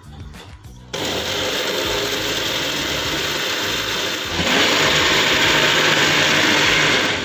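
Kissen countertop blender switched on about a second in, running steadily as it blends chopped muskmelon, banana and milk into juice. About three seconds later it gets louder and brighter.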